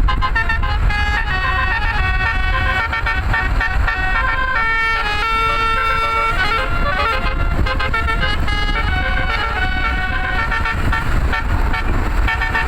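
A bus's multi-trumpet 'telolet' Basuri air horn playing a quick melody of held notes, one after another, over a steady low rumble.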